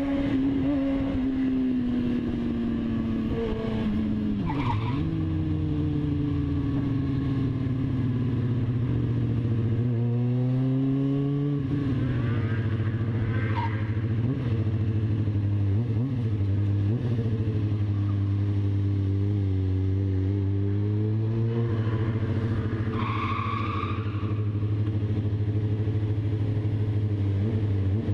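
Motorcycle engine running under way, heard from on board the bike, its pitch falling and rising several times with throttle and gear changes over a steady rush of noise. A few brief high-pitched sounds cut in, the clearest about 23 seconds in.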